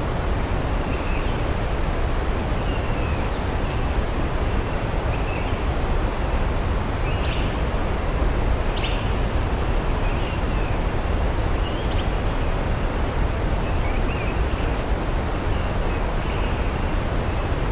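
Steady rushing of a waterfall, with faint, short bird chirps scattered through it.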